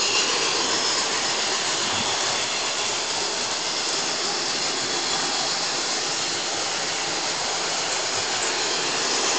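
Bachmann G-scale model steam train running on its track, giving a steady rushing hiss.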